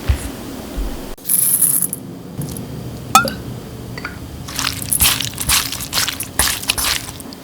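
Kitchen food-preparation noises: a brief hiss, a sharp knock about three seconds in, then a quick run of crunching and scraping sounds.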